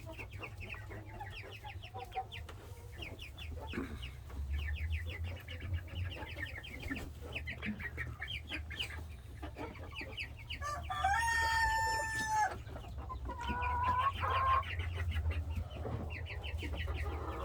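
Chickens clucking in rapid trains, with a rooster crowing once about eleven seconds in, one long flat-pitched call, and a shorter call soon after.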